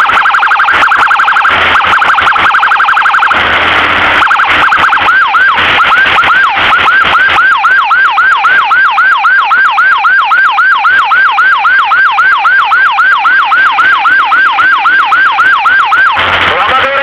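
Emergency vehicle's electronic siren cycling through modes. It opens with a fast, high warble, then gives a brief harsh blast. After that comes a rapid yelp sweeping up and down about three or four times a second, and another short blast near the end.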